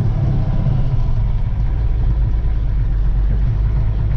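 1966 Ford F-250 pickup's engine running steadily, heard from the hood, its note dropping lower about a second and a half in as the truck eases off after a donut in the snow.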